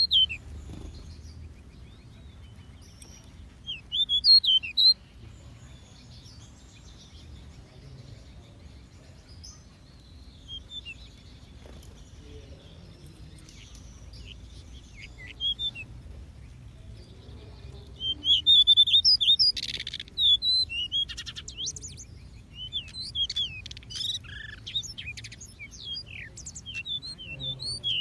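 Small aviary birds chirping: short, high chirps in scattered bursts that grow busier and more overlapping over the last third, over a faint low background hum.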